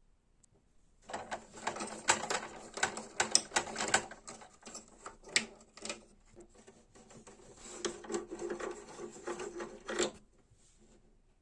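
Brother printer's mechanism running: rapid, irregular clicking and rattling that starts about a second in and stops suddenly near the end.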